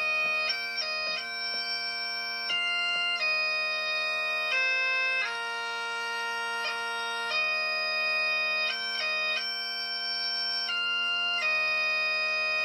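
Bagpipes playing a slow tune over a steady drone.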